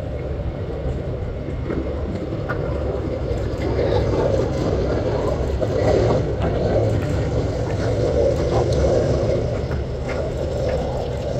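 Low, steady rumble of an Airbus A320-family airliner's jet engines on final approach with gear down, swelling through the middle and easing slightly near the end.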